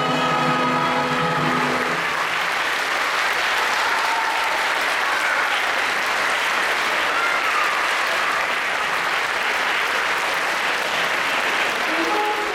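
Audience applauding steadily. The last held chord of the music is still sounding for about the first two seconds.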